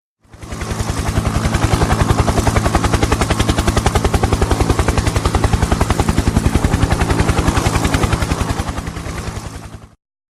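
Helicopter rotor beating at a rapid, even rhythm, fading in at the start and fading out near the end.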